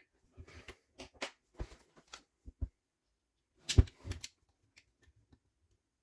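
Irregular clicks and knocks of an AEG EX 125 ES random orbit sander's housing and parts being handled and fitted back together by hand, with one louder knock a little past halfway. The motor is not running.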